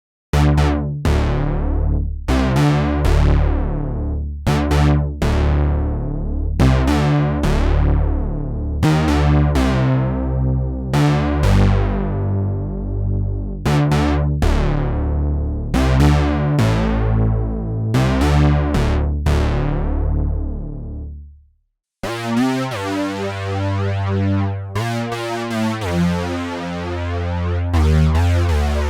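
Arturia JUN-6V software synthesizer, an emulation of the Roland Juno-60, playing a plucky patch: repeated chords over a bass line, each note starting bright and quickly dulling. It stops about 22 seconds in, and after a brief silence a different patch with a denser, sustained tone begins.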